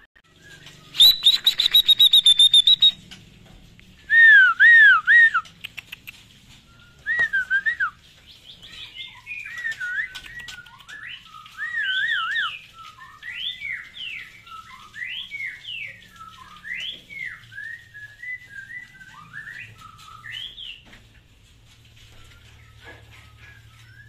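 White-rumped shama singing: a fast run of high repeated notes, then loud looping whistles, then a long run of varied, softer whistled phrases.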